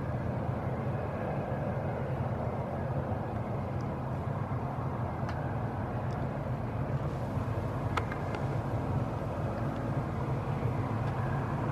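Combine harvester running steadily while harvesting soybeans: a low engine hum under an even rushing noise.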